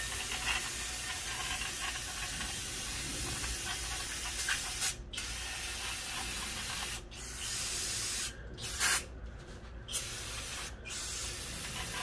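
Aerosol brake parts cleaner hissing steadily from its straw nozzle as it blasts dirt out of the drill holes of a brake rotor and caliper. The spray stops and restarts in short bursts, with several brief pauses in the second half.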